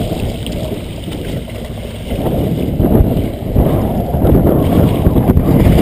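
Wind buffeting the microphone over the rush of sea water alongside a boat, an uneven low rumble that grows louder about two seconds in.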